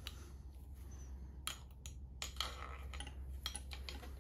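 Light metallic clicks and clinks, several scattered irregularly, of a hand tool against the metal parts of a bicycle suspension fork being reassembled.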